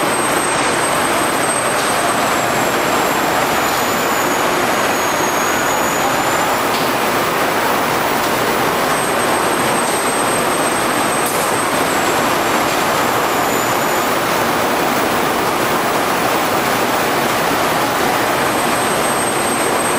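Steady, loud rushing noise of a meatball boiling production line's machinery and steam, with a faint high whine that comes and goes.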